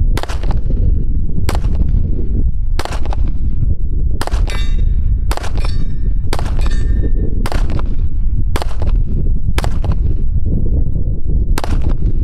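AR-15 rifle with a 20-inch barrel firing 5.56 M855 green-tip rounds at an AR500 steel plate: about ten shots roughly a second apart, several followed by the plate's metallic ring.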